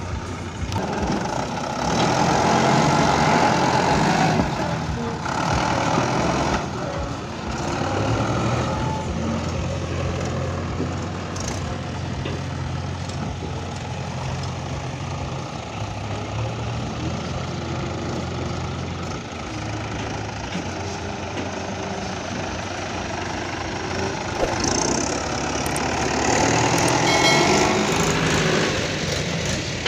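Heavy diesel engines running steadily, louder for a couple of seconds near the start and again near the end. The sources are a JCB backhoe loader and a Mahindra 575 tractor hauling a trolley loaded with soil.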